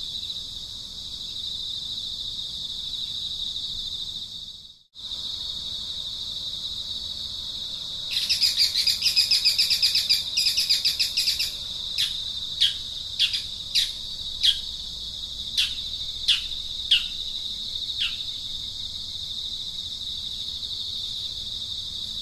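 A steady, high-pitched insect drone of crickets or cicadas runs throughout and cuts out briefly about five seconds in. About eight seconds in, a rapid chirping trill lasts some three seconds. It is followed by about nine short bird chirps, each falling in pitch.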